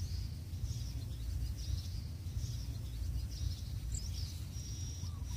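Faint bird chirps, repeated every second or so, over a steady low rumble.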